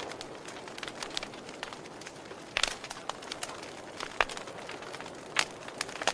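Fire crackling: many small irregular pops and snaps over a steady hiss, with three sharper, louder pops about two and a half, four, and five and a half seconds in.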